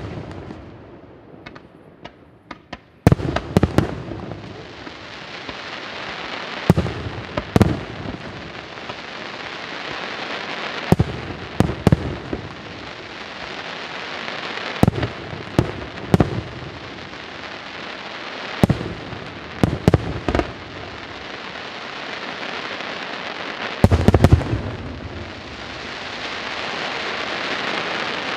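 Aerial firework shells bursting in a display: a dozen or so sharp bangs every few seconds, often in quick pairs, over a continuous dense hiss that swells near the end.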